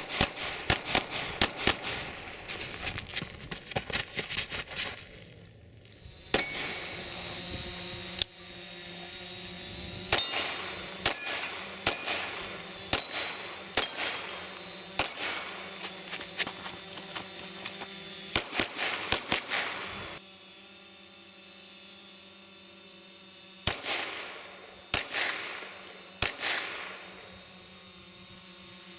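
Pistol shots fired in quick strings of several shots, with short pauses between strings: a dense burst in the first few seconds, then further strings through to near the end.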